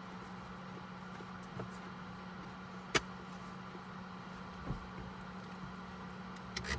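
Plug-in space heater running with a steady hum and fan noise inside the truck cab. A single sharp click comes about three seconds in.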